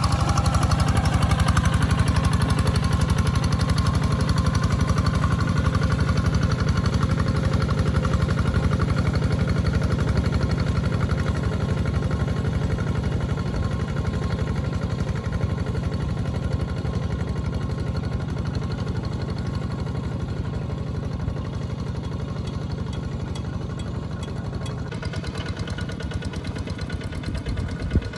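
Walk-behind two-wheel tractor's engine running steadily under plowing load, a fast, even chugging.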